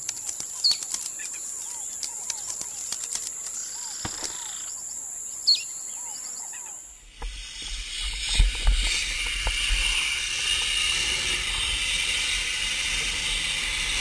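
Small birds chirping over a steady high-pitched whine. About seven seconds in, this cuts off abruptly and gives way to wind rumbling on the microphone with a steady rushing hiss.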